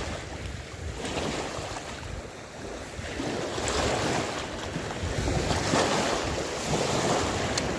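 Sea waves washing in uneven swells, with wind buffeting the microphone.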